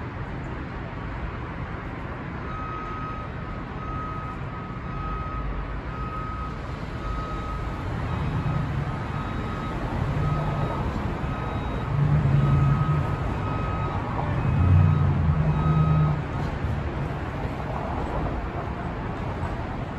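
Downtown street traffic hum, with a heavy vehicle's engine growing louder through the middle and a reversing alarm beeping steadily, about four beeps every three seconds. The beeping stops near the end, as the engine falls back.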